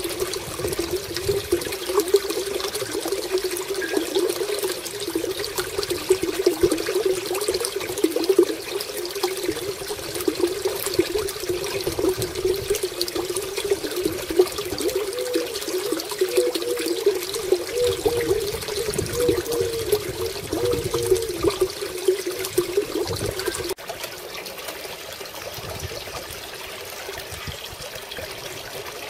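Small fountain jet in a koi pond splashing steadily into the water, a continuous bubbling trickle; a little after twenty seconds it steps down quieter.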